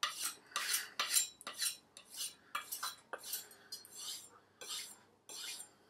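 Kitchen knife blade drawn in quick alternating strokes along a hand-held stropping board, about two short scraping swishes a second. This is the final stropping of the freshly sharpened edge, a couple of strokes on each side.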